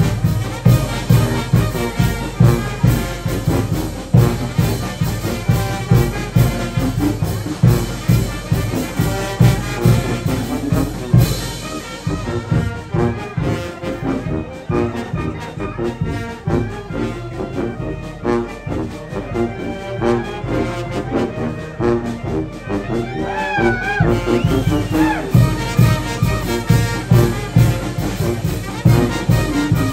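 Oaxacan village brass band playing a son-and-jarabe dance tune: trumpets and trombones over a steady bass beat. About twelve seconds in the band drops to a softer, thinner passage for roughly ten seconds, then the full band comes back in.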